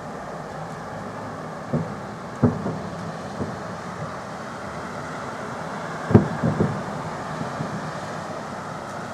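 Fireworks salute shells bursting overhead: several separate booms, with a quick cluster of three about six seconds in, the loudest of them, over a steady background rumble.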